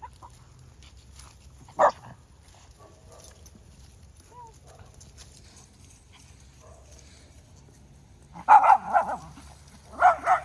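A dog barking: one sharp bark about two seconds in, then a quick run of loud barks near the end.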